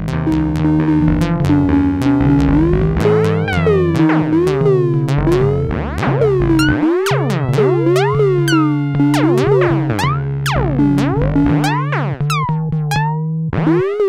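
Eurorack modular synthesizer playing a patch driven by an Instruō SCÍON's control voltages, with the slew turned up so the notes slide into one another: swooping, gliding tones over a held low note that shifts now and then.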